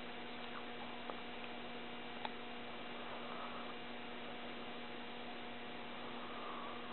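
100-watt high-pressure sodium street lamp humming steadily from its ballast as the lamp warms up, with two faint ticks in the first few seconds.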